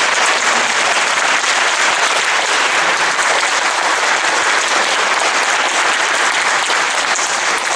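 Church congregation applauding: dense, steady clapping.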